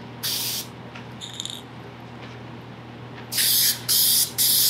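Aerosol can of Permatex headliner spray adhesive hissing in short bursts: one about a quarter second in, then three quick ones near the end. The glue comes out of the nozzle in little squirts as a light coat is laid on.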